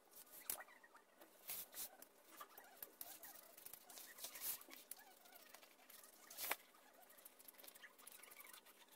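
Scissors cutting through a fabric-backed leather sheet: faint snipping and rustling of the sheet, with a few sharp clicks, the loudest about two-thirds of the way through.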